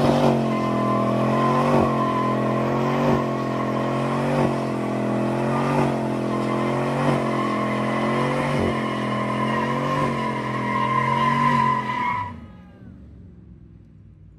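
A pickup truck doing a burnout: the engine is held at high revs while the rear tyres spin and squeal in a steady high tone. The revs dip and recover roughly every one and a half seconds. It all stops abruptly about twelve seconds in.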